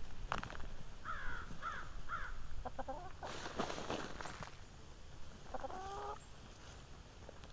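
Chickens clucking softly: a few short calls, with some rustling in the middle.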